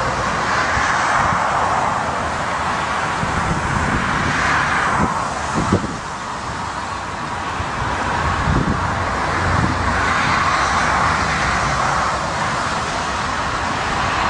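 Twin-engine jet airliner's engines running steadily on final approach, the noise swelling and easing, with gusty wind buffeting the microphone in a few dull thumps.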